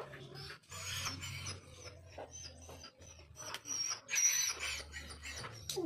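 Metal scraping, squeaks and sharp clicks as a screwdriver works inside a starter motor's carbon-brush holder during assembly. The longest scraping comes about a second in and again about four seconds in.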